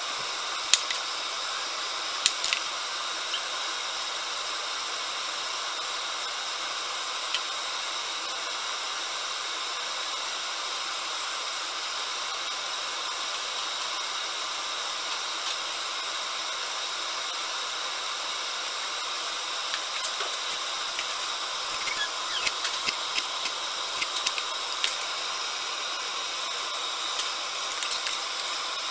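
Steady, even hiss of kitchen background noise, with scattered light clicks and knocks of food preparation on a wooden cutting board and a plastic blender jar. The clicks come close together about twenty seconds in, as parsley is cut with a knife.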